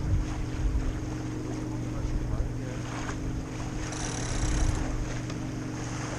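Wind buffeting a head-mounted microphone aboard a sailboat under way in light air, with water moving past the hull and a steady low hum underneath; a short hiss, like water or spray, about four seconds in.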